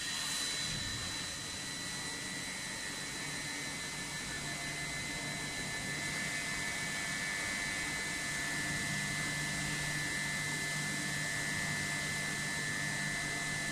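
Automatic screen washing machine running: a steady hiss of water spray over a motor hum, with a thin steady high whine.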